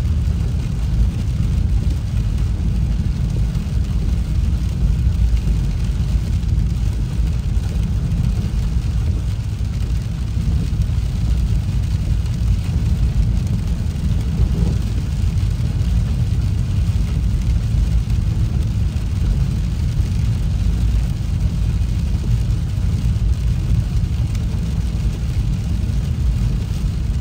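A car driving on a wet road, heard from inside the cabin: a steady low rumble of road and tyre noise.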